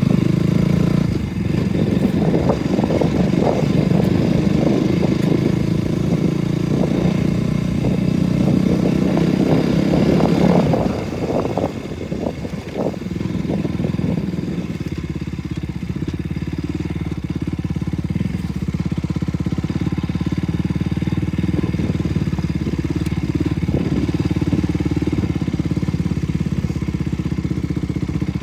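KTM RC 200's single-cylinder engine running while the bike is ridden off-road, with a lot of clatter for the first ten seconds or so. About eleven seconds in the clatter stops and the engine runs steadier and a little quieter.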